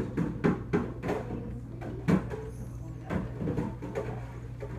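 Irregular sharp taps and knocks, several a second, over a steady low hum.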